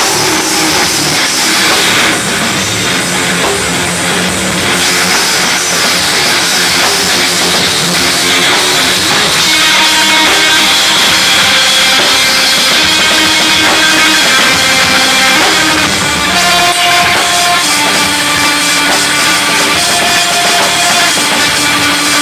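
Heavy metal band playing live: distorted electric guitars over a pounding drum kit at full volume. About halfway through, held guitar notes stand out over the rhythm.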